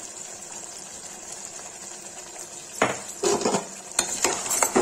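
A spoon scraping and knocking against the side of an aluminium pressure cooker as potato curry is stirred, starting about three seconds in, with irregular clinks and scrapes. Under it is a steady sizzling hiss of the masala frying.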